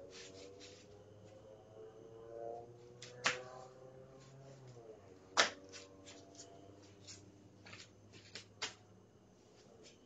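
Faint footsteps on a concrete path: sharp clicks, the loudest about three and five seconds in, then several softer ones, growing fainter. A low steady hum underneath stops about halfway through.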